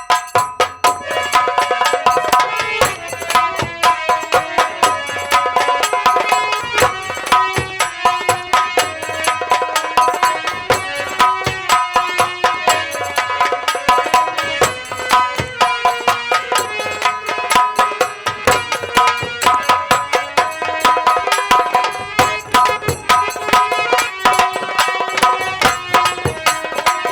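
Live nautanki band music: fast, dense hand-drum strokes over a sustained, held melody line.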